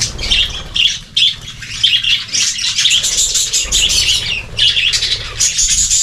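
A flock of budgerigars chattering and chirping continuously, many birds calling over one another.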